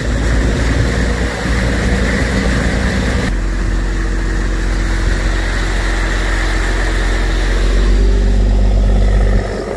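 Fishing boat's inboard diesel engine running under way, a loud steady drone. The drone grows louder near the end, then drops suddenly.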